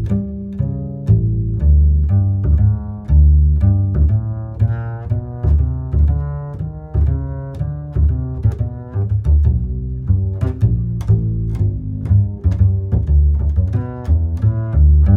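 Background music on low strings, cello and double bass, playing a quick run of notes with sharp plucked attacks.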